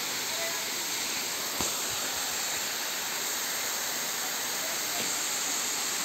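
Steady rushing hiss of a waterfall pouring into a pool, with a light knock about one and a half seconds in.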